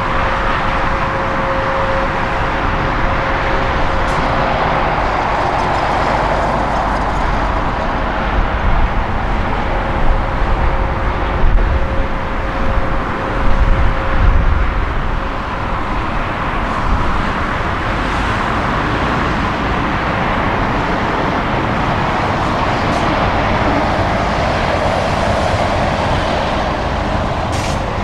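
Jet engines of a China Airlines Airbus A320neo-family airliner running at taxi power: a steady rushing drone with a thin steady whine over it for the first few seconds and again through the middle. From about a third of the way in to about halfway there is a heavier low rumble that surges several times.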